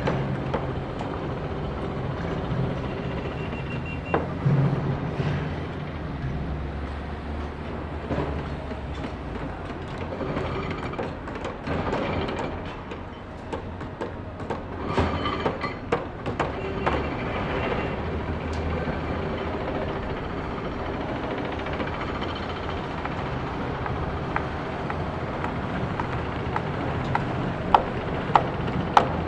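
Construction-site noise: a heavy machine's engine running steadily under scattered metal knocks and clanks from work on the site, with a few sharp bangs near the end.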